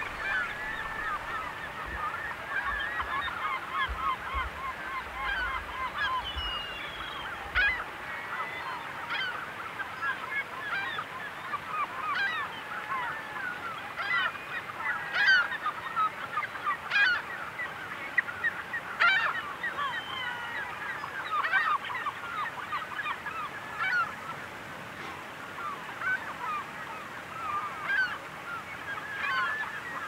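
Many bald eagles calling at once: a dense, overlapping chorus of high, chattering calls, with a few louder shrill calls standing out in the middle.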